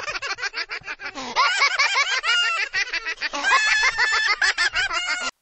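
High-pitched giggling laughter in rapid pulses, cutting off suddenly near the end.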